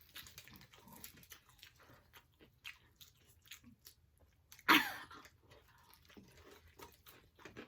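Close-up chewing and biting of spicy fried chicken drumsticks, with small crunches and wet mouth clicks. One short, louder burst about two-thirds of the way through.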